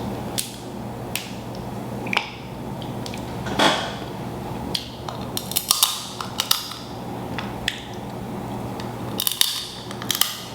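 Eating a seafood boil close to the microphone: irregular sharp cracks, clicks and crackles of shellfish shells being broken and food being handled and chewed, busiest in a flurry in the middle and another near the end.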